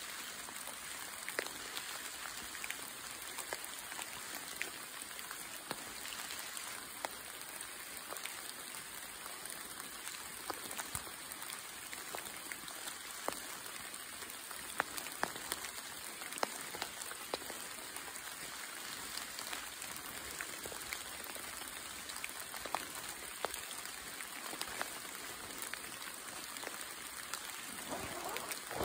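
Light rain falling on trees and leaf litter: a steady patter with many scattered, sharper single drops.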